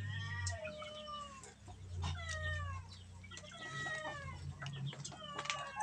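Domestic cat meowing repeatedly: about four drawn-out meows, each falling in pitch.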